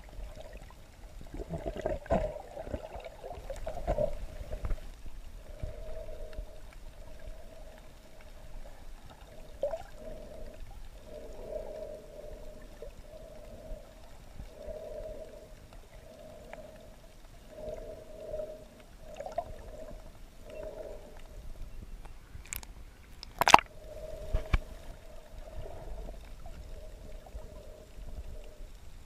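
Muffled underwater water noise, a gurgling sound that pulses about once a second, with a sharp click about three-quarters of the way through.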